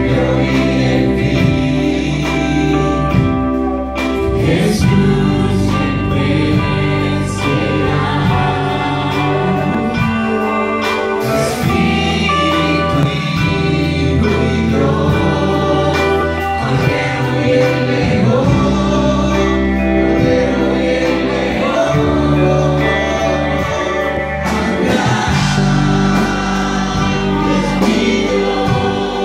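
A live church worship band playing a gospel song. Several male and female voices sing together over keyboard, guitar, bass and drums.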